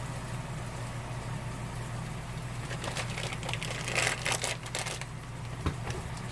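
Crinkling and rustling of cheese packaging as cheese is sprinkled over the eggs, in a cluster a few seconds in, over a steady low hum; one sharp knock near the end.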